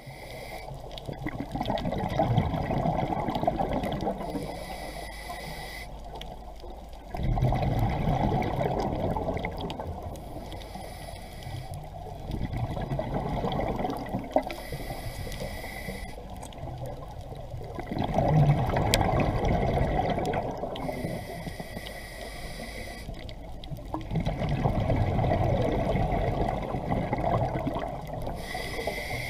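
Scuba diver's breathing heard underwater: rushing bursts of exhaled bubbles from the regulator, five of them, each lasting a few seconds, with quieter hiss in between.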